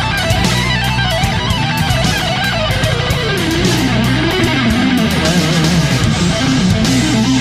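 Background rock music: electric guitar over bass and a steady beat.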